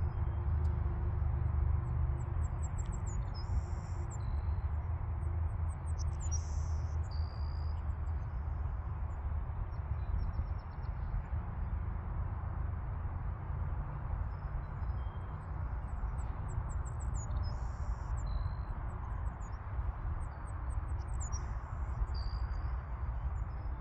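A songbird singing short high chirping phrases, four times with pauses between, over a steady low rumble.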